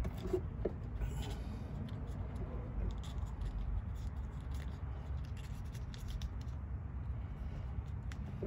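Faint scratching and a few light clicks of hands handling wiring and a small seal, over a steady low rumble.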